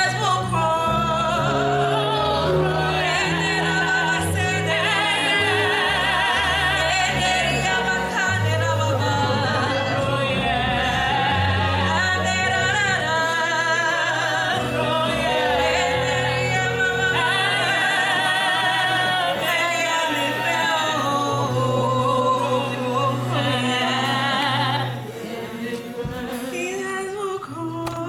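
Music: a voice singing with strong vibrato over held low bass notes that change every second or two. It drops quieter for a few seconds near the end.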